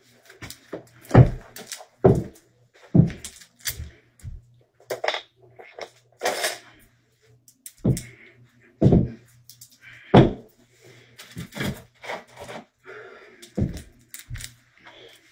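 Irregular thumps and knocks, about a dozen, with faint scuffing between them and a faint steady low hum underneath.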